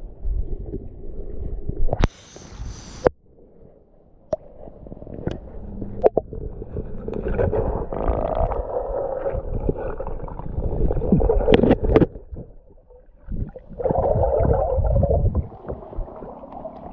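Water heard through a submerged GoPro HERO8: muffled gurgling and sloshing with scattered clicks and a brief hiss about two seconds in.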